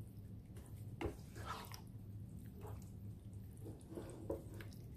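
Wooden spoon stirring and folding a thick, creamy seafood sauce in a nonstick skillet: soft, irregular wet squelches and light scrapes. A steady low hum sits underneath.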